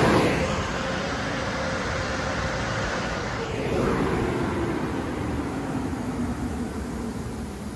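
Car wash dryer blowers on a Washworld Razor gantry blowing air, a steady rushing noise that drops as the vehicle pulls out of the bay, swells briefly about halfway, then fades slowly.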